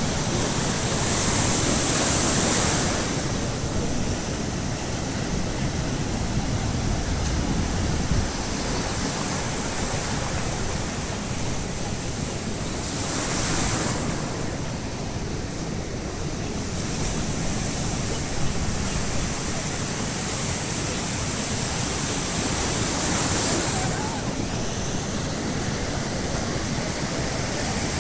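Baltic Sea surf washing onto the shore: a steady rush of water, with waves breaking and swelling louder roughly every ten seconds.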